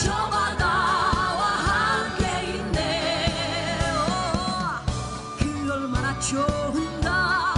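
Background music: a song with a singer's voice on long, wavering notes over a steady beat.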